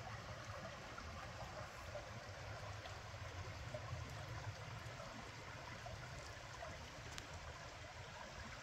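Shallow creek flowing steadily over flat rocks, a continuous babble of water.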